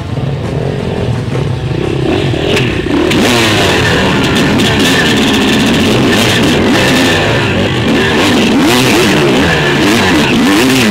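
Enduro dirt bike engine revving up and down, its pitch rising and falling over and over as the rider works the throttle over rough ground. It gets louder about three seconds in.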